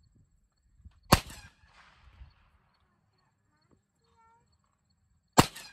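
Two rifle shots fired at a distant target, about four seconds apart, each a sharp crack followed by a short echoing tail.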